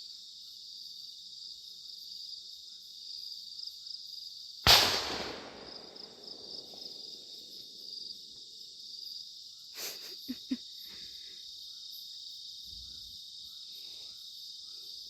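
A firecracker goes off once about five seconds in, a single sharp bang with a long echoing tail, over a steady high chorus of crickets and other insects. A few much fainter clicks follow about ten seconds in.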